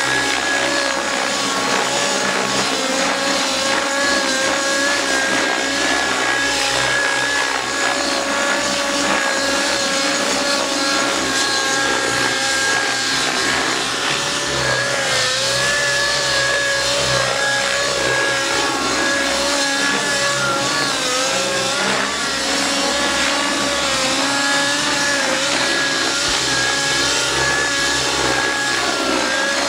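Outrage Velocity radio-controlled helicopter's glow (nitro) engine and rotor running at high speed in flight. The pitch wavers up and down continuously, with a deeper dip and recovery about twenty seconds in.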